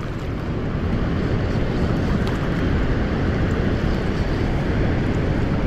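Steady low rushing noise of wind buffeting the microphone, mixed with the flow of the river, with no clear separate events.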